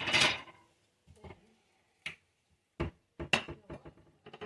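Kitchenware clattering: a serving utensil and dishes knocking and clinking in short separate knocks, with a quick run of clinks near the end, as casserole is served onto a plate.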